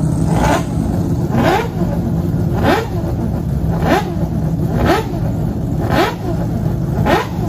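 Four-rotor Mazda rotary racing engine running and being blipped on the throttle about once a second, each blip a quick rising rev over the steady idle, seven in all.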